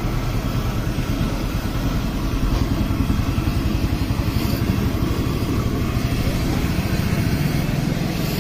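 Steady low mechanical rumble with a fast, even pulse.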